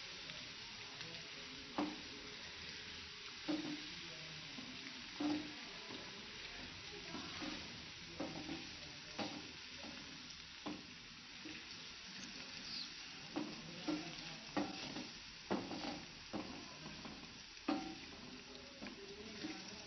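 Chopped garlic sizzling in hot ghee as a tadka is fried. A wooden spoon stirs it, knocking and scraping against the metal pan every second or two.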